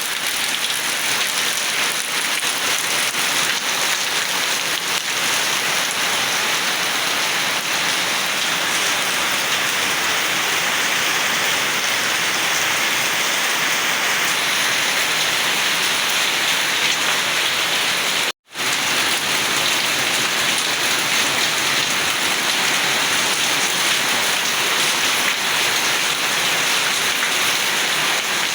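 Steady rain falling, a dense even hiss that cuts out for an instant about two-thirds of the way through.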